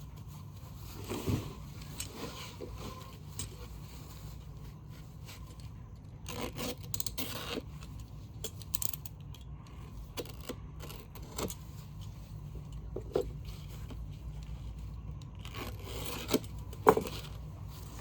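Irregular scraping and clicking, short sharp scrapes at uneven intervals over a steady low rumble.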